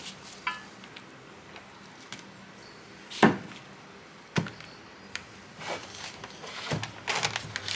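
Parts and tools being handled on a workbench while urethane suspension bushings are greased. There are a few separate knocks and clicks, the loudest about three seconds in, and a quick run of clatter near the end.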